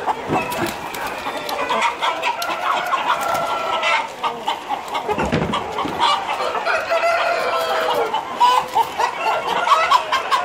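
A large flock of caged laying hens clucking and calling together in a continuous din, with scattered sharp clicks and knocks.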